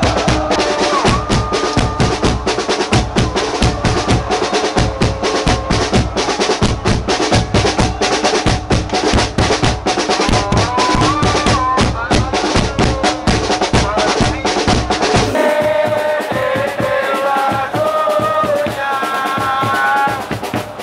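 Supporters' big bass drums beaten in a fast, steady rhythm while the crowd chants along. About fifteen seconds in, the drumming stops and the crowd's chanting carries on alone, clearer and sung.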